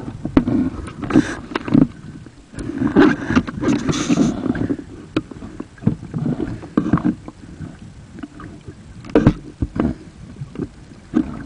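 Underwater sound through a camera housing during a spearfishing dive: water swirling and bubbling, with irregular sharp knocks and clicks.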